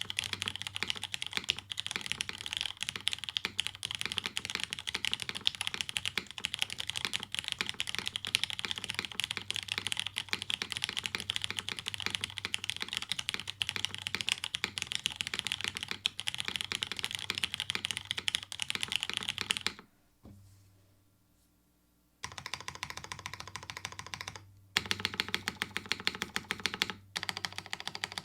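Fast continuous typing on a Hineybush Hiney TKL mechanical keyboard with diamond-polished Cherry MX Brown tactile switches in a carbon fiber plate and CRP R4 keycaps. About two-thirds of the way in the typing stops for around two seconds, then resumes in shorter runs.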